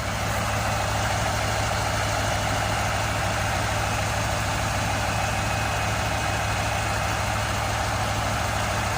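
KamAZ truck diesel engine idling steadily as it warms up, coolant at about 40 degrees, with an even low throb.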